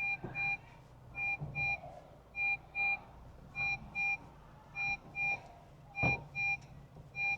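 A car's warning chime: a double beep that repeats about every 1.2 seconds, with a single soft knock about six seconds in.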